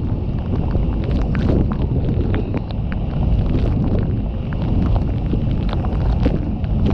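Waterfall in heavy flood: a loud, steady rumble of falling water, with wind buffeting the microphone and scattered crackles through it.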